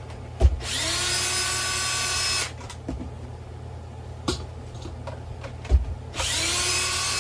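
Heavy-duty power drill backing out the axle bolts on a Onewheel Pint X. It runs twice, each time for a second or two, and the motor whine climbs quickly to a steady pitch. A sharp knock comes just before each run.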